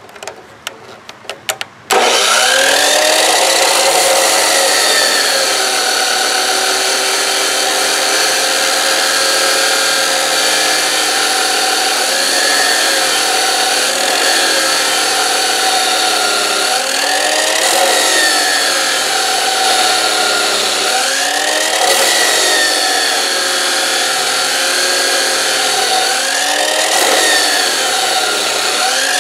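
Abrasive chop saw starting about two seconds in, after a few clicks, then cutting through a rusty steel bar. The motor's pitch rises and falls every few seconds as the blade is pressed into the steel.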